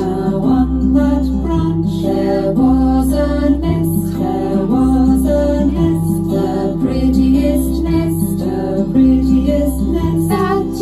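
A children's action song: a woman singing a melody over a backing track with a steady bass line.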